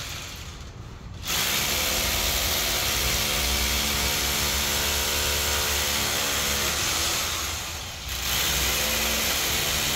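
Power drill drilling into a concrete floor, running steadily from about a second in. It eases off briefly near the end, then starts again.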